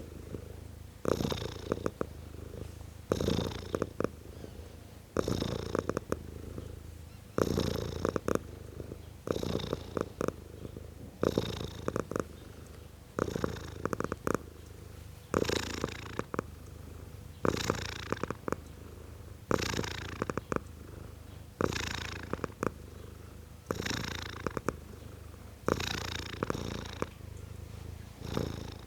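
A tomcat purring in a steady rhythm, one purring breath about every two seconds, each lasting about a second.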